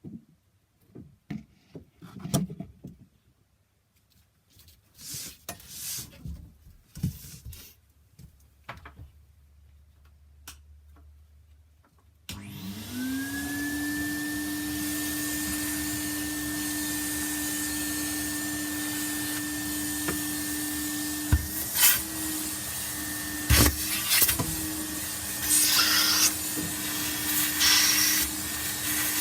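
Soft, intermittent rubbing and handling sounds. About twelve seconds in, a vacuum cleaner is switched on: its motor whine rises quickly and settles into a steady whine over loud rushing suction. Two sharp knocks and some uneven bursts of suction noise come near the end.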